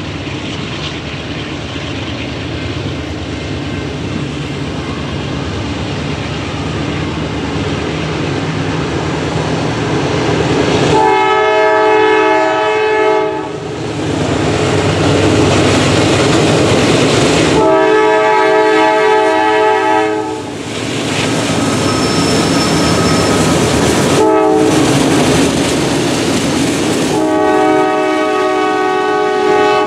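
NS AC44C6M diesel locomotive leading a freight train in, its engine drone growing louder as it approaches. It then sounds a multi-chime air horn in the grade-crossing pattern of long, long, short, long, with the last blast held as the locomotives pass.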